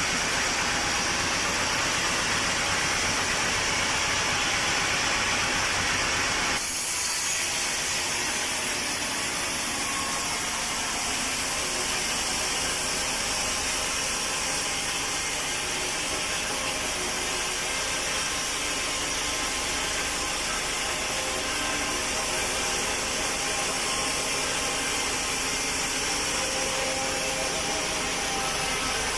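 Sawmill saw running steadily, cutting teak. The sound changes abruptly about seven seconds in, becoming thinner and higher.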